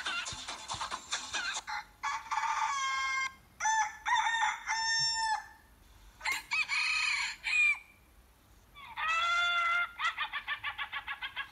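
Recorded rooster calls played from a smartphone rooster-sound app: about four cock-a-doodle-doo crows one after another with short gaps between them, then a fast, even run of clucks near the end.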